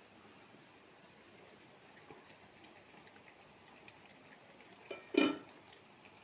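Shukto vegetables simmering faintly in their liquid in an open steel pan on a gas stove. One short, louder knock about five seconds in.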